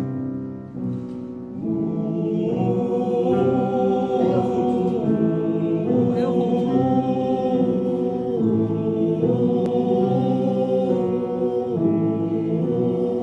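A choir singing slow, sustained chords without words, the harmony shifting every second or two.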